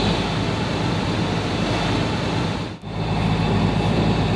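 A sailboat's inboard diesel engine running steadily under way, a low hum under a broad rushing noise of wind and water. The sound drops out for an instant about two-thirds of the way through.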